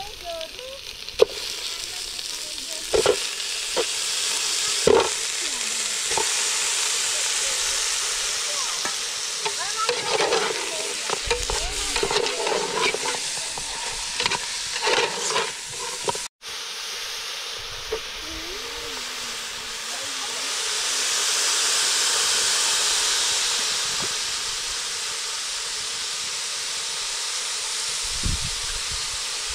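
Food sizzling and frying in a hot pan: a steady hiss, with scattered clinks and scrapes of stirring through the first half.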